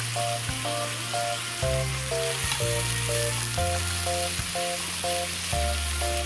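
Food sizzling in a hot pan over the campfire, a steady hiss, under background music of short repeated notes over a bass line.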